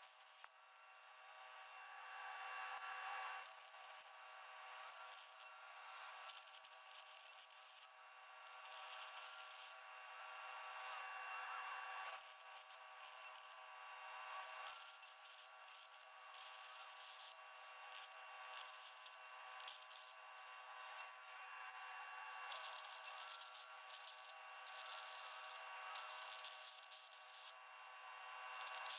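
Arc gouging cracks out of a steel trommel drum: stop-start stretches of hissing, crackling noise a second or two long, over a steady hum.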